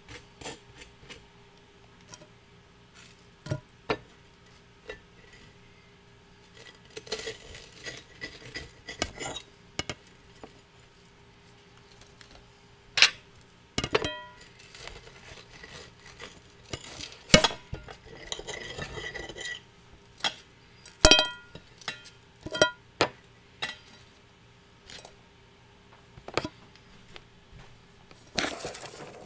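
Toast and ceramic plates handled on a counter: scattered clinks and knocks, several with a short ringing note, between stretches of scraping and shuffling.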